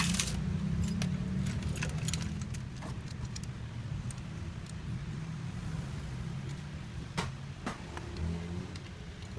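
A car engine running steadily, with several sharp metallic clinks over it.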